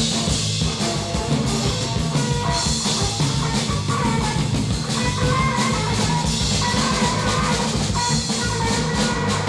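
Noisy rock music from a band. A drum kit plays a steady, dense beat over sustained bass and guitar.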